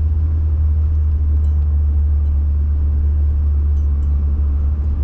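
Vehicle driving on a snowy road, its engine and tyres making a steady low drone.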